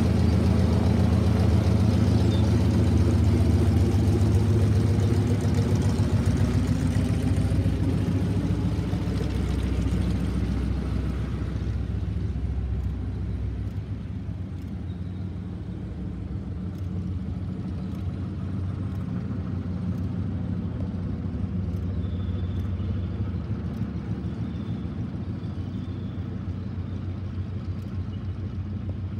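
Spartan Executive's nine-cylinder Pratt & Whitney R-985 Wasp Junior radial engine running at taxi power. It fades and loses its brighter edge over the first half as the aircraft taxis away, then runs on steadily at the lower level.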